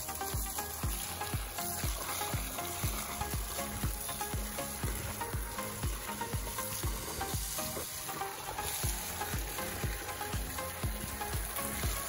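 Water from a garden hose spraying and splashing into a plastic kiddie pool as a Great Dane wades in it, a steady hiss. Background music with a steady beat of about three pulses a second runs under it.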